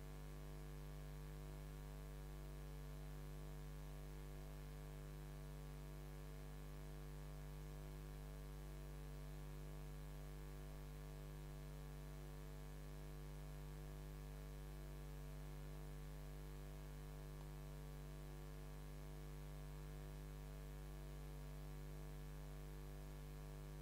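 Steady electrical mains hum, a low buzz with a stack of higher overtones and faint hiss, unchanging throughout.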